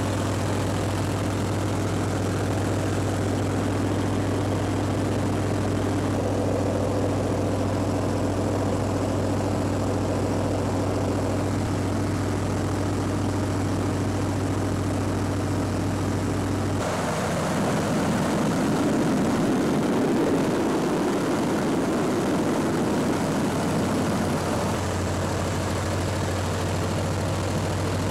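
Radial engine and propeller of a 1941 Waco biplane running steadily, heard from the open cockpit with wind rushing past. About two-thirds of the way through, the steady engine hum changes abruptly to a rougher, louder rush, and the steady low tone comes back near the end.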